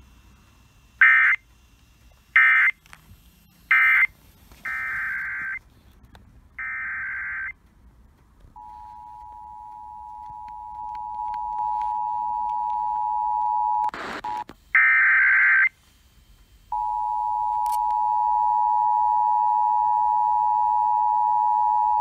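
Emergency Alert System tones played over an FM radio: a string of short screeching digital data bursts (three quick ones, then two longer), followed by the steady two-tone EAS attention signal that grows louder. The attention tone is cut about 14 seconds in by a short crackle and another data burst, then resumes.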